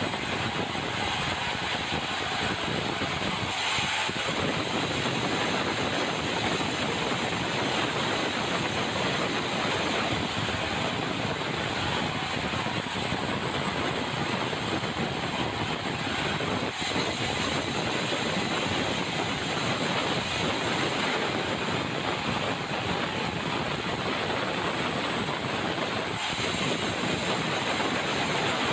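Sawmill running, a steady, dense machine noise of the saw and its engine, unbroken.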